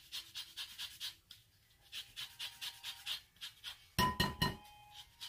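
A lemon being zested on a stainless rasp grater: quick, even scraping strokes, about four a second, with a short pause in the middle. About four seconds in comes a louder clatter with a brief ringing tone.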